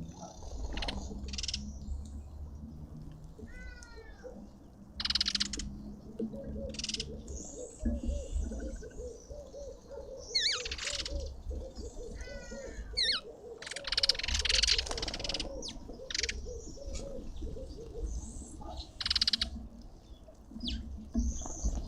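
Several garden birds calling and chirping, with short sharp calls and quick rising chirps throughout. A run of low repeated notes, about three a second, goes on through the middle.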